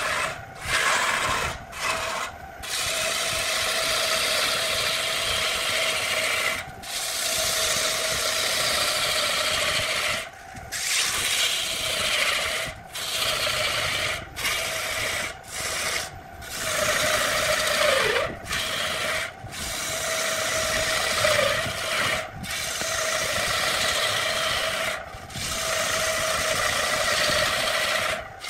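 Turning tool cutting into a spinning wood blank on a lathe: a continuous rough cutting noise over a steady hum. It breaks off briefly more than a dozen times, at irregular intervals.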